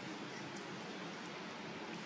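Steady, even background noise like a hiss, with no distinct calls, knocks or other events.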